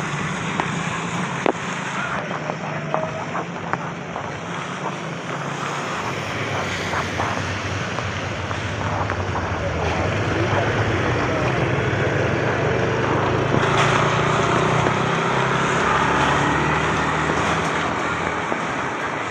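Street traffic on a wet road: a steady rush of engines and tyres, growing louder from about halfway in as a vehicle passes close, then easing off near the end.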